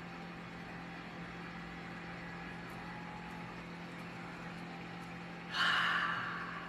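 Room tone with a steady low hum, and about five and a half seconds in a short breathy sound lasting about a second that fades out.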